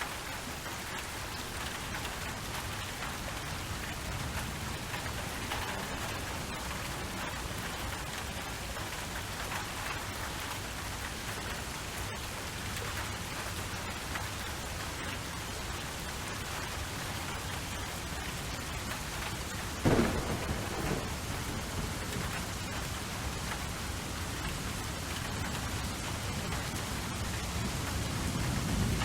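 Steady rainfall with a sudden sharp thunderclap about two-thirds of the way through, then a low rumble of thunder building near the end.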